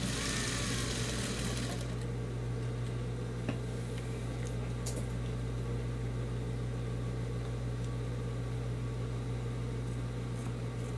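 Industrial sewing machine motor humming steadily while denim strips are topstitched onto a patchwork rug. A short scratchy rush of noise fills the first two seconds, and a few faint clicks come later.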